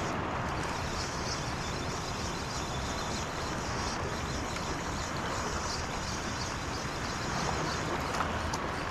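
Steady rushing outdoor noise of wind and shallow seawater, even and unbroken.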